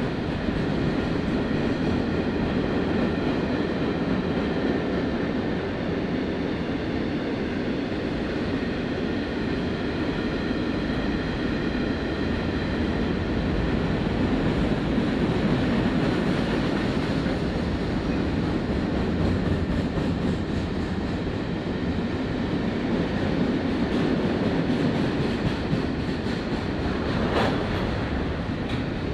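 Freight wagons, including empty steel-carrying flat wagons, rolling past at speed: a steady rumble of steel wheels on rail with a faint high ringing tone through the first half and an occasional sharp click.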